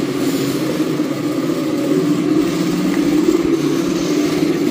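Hard plastic wheels of a push-along ride-on toy car rolling over a tiled floor, making a loud, steady drone.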